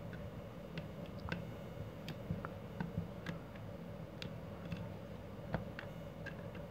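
Faint, irregular small clicks and ticks as fingers handle a stranded wire and push its ends into the common screw terminal of a thermal overload relay.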